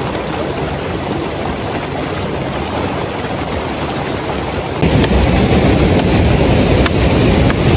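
Fast mountain stream water rushing and splashing over rocks as hands and a stick churn it. About five seconds in, this gives way to a louder, deeper rushing noise with a few light knocks.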